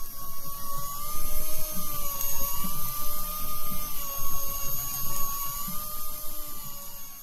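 Electric deep-sea fishing reel's motor whining steadily as it winds in line, its pitch dipping and rising slightly under the load of a fish on the bent rod.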